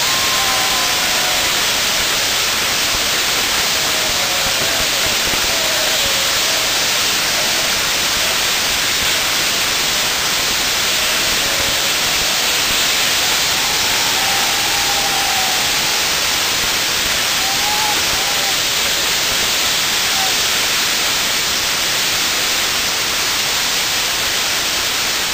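Spinning ground-firework wheel driven by burning gerbs (spark fountains), giving a steady, loud rushing hiss.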